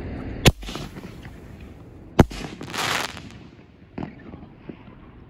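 Brothers Pyrotechnics Unmatched 5-inch canister shell fired from a mortar tube. The launch thump comes about half a second in, and the shell breaks overhead with a louder, sharp report under two seconds later. A brief hiss and two faint pops follow.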